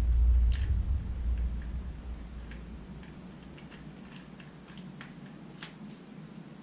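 Small clicks and taps of a cable connector being turned and tried against a mating connector on a power-supply box: a few scattered ticks, with one sharper click near the end. A low rumble fades out over the first couple of seconds.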